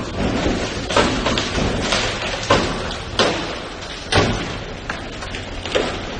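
An enclosed ship's lifeboat being struck and crushed against a steel cargo-crane structure: a series of irregular heavy bangs and thuds, about one a second.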